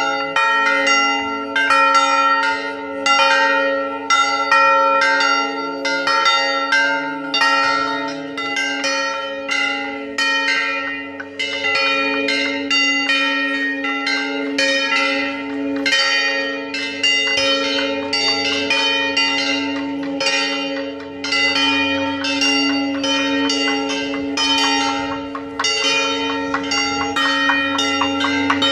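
Several church bells mounted on low outdoor frames, rung by hand together in a continuous festive peal. Rapid overlapping strikes come a few times a second over a steady ringing hum.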